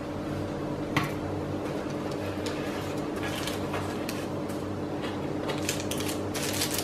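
Hands handling shortbread dough pieces on a plastic sheet and a paper-lined baking tray: a click about a second in and faint light clicks and rustles near the end, over a steady mechanical hum.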